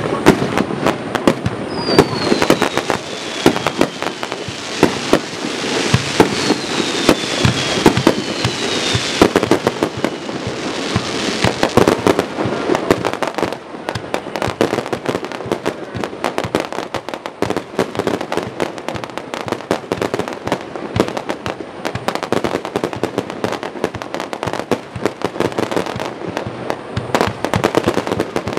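Fireworks display: a dense, continuous barrage of bangs and crackling reports, with a few falling whistles in the first ten seconds.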